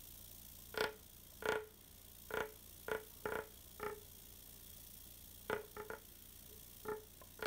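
Candle-heated tin-can thermoacoustic (rice) engine buzzing in about a dozen short, unevenly spaced spurts as its vibrating membrane drives the hand-held linear generator, which makes very little electricity.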